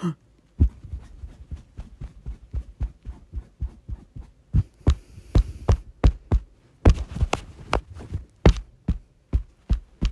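A rapid run of heavy thuds added as a cartoon sound effect, about two to four a second, uneven, with a denser flurry a little before the two-thirds mark.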